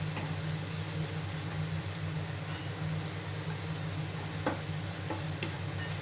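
Onion, green chilli, curry leaves and grated coconut sizzling in coconut oil in a nonstick frying pan while a wooden spatula stirs them, with a couple of light taps of the spatula on the pan near the end. A steady low hum runs underneath.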